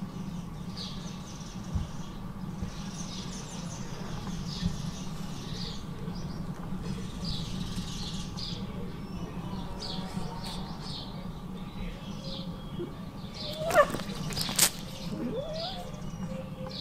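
Small birds chirping in short, repeated bursts over a steady low hum, with two sharp clacks about three quarters of the way through.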